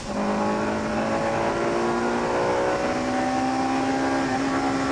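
Honda Integra Type R's B18C 1.8-litre four-cylinder VTEC engine heard from inside the cabin. It drops off briefly for an upshift at the start, then accelerates with its pitch climbing steadily.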